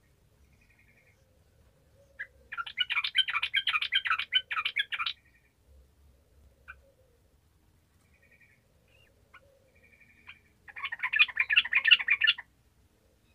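Yellow-vented bulbul (trucukan) singing: two bursts of rapid chattering notes about two seconds each, with a few short single calls between them.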